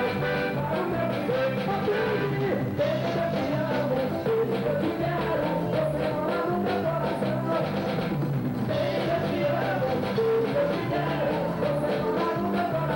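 A band playing with a singer's voice carrying the melody over a stepping bass line and a steady beat.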